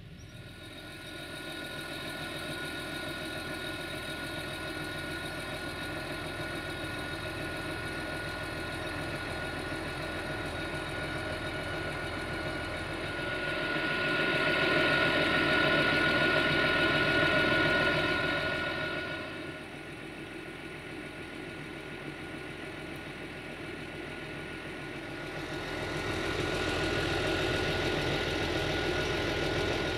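Diesel multiple unit's engines running with a steady whine as the railcar moves through the station, louder for several seconds in the middle and again near the end.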